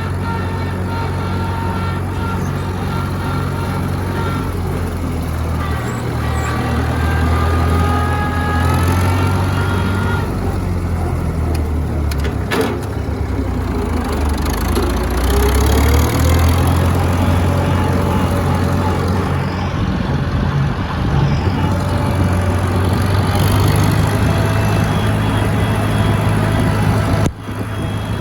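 Case 730 tractor engine running steadily under load while pulling a rotary mower. The engine note shifts a little, rising once about halfway through, and there is a brief drop in level near the end.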